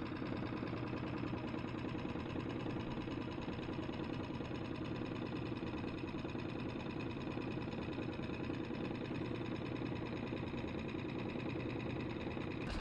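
Small Mercury four-stroke outboard motor running steadily at low trolling speed, an even hum that does not change.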